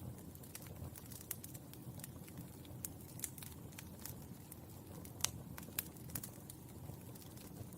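Burning charcoal crackling: irregular sharp pops and ticks over a soft low rumble, the loudest pop a little past five seconds in.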